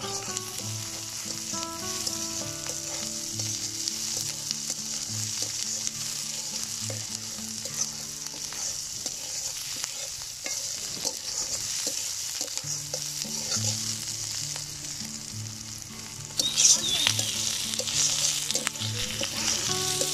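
Sliced onions sizzling as they fry in hot oil in an aluminium karahi, stirred and scraped with a metal spatula. The sizzle and stirring grow louder about three-quarters of the way through.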